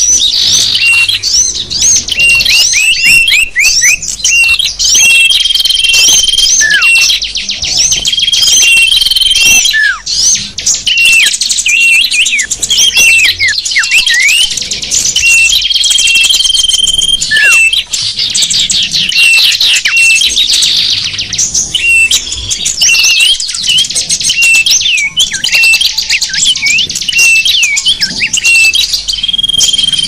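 Loud, dense chorus of many small songbirds chirping, trilling and whistling over one another, a mixed 'sapu jagat' bird-lure recording meant to draw in wild small birds. A level whistled note about a second long recurs every few seconds, and quick down-slurred calls fall in between.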